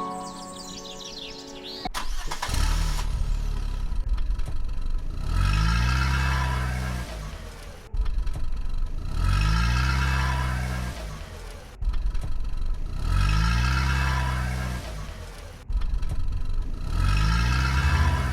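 A car engine revving up and dropping back, the same rev repeated about four times, roughly every four seconds, with abrupt cuts between them.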